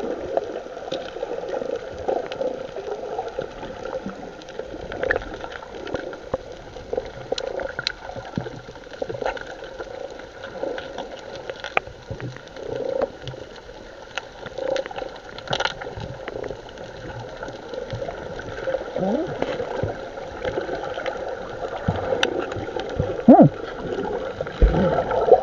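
Seawater sloshing and gurgling, with scattered small knocks and splashes, as a fishing net is hauled up out of the sea.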